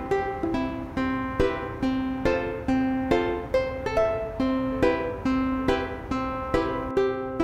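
Background music: a light tune of plucked string notes, about two to three a second, each ringing and fading before the next.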